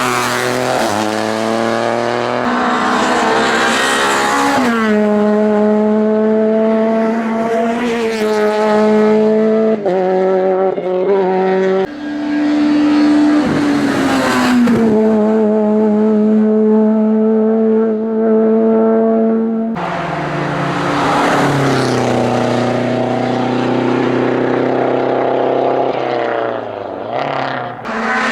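Hillclimb race cars at full throttle, one after another, engines revving up and dropping in pitch at gear changes. The sound switches abruptly between different cars several times.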